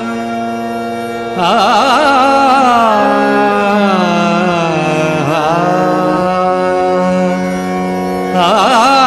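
Marathi devotional song: a singer draws out long wordless melodic phrases with vibrato over steady sustained accompanying notes. The voice comes in about a second and a half in and rises again near the end.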